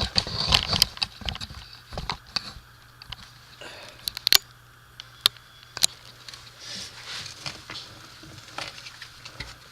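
Scattered sharp clicks and metal taps of parts and hand tools being handled while reassembling an NP247 transfer case, over a steady low hum.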